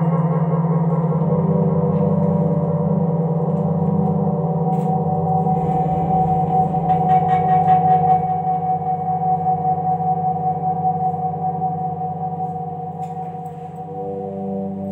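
Live drone music: layered sustained tones run through echo and effects, held steady, with a brief pulsing flutter about halfway through and a gradual fade in loudness toward the end.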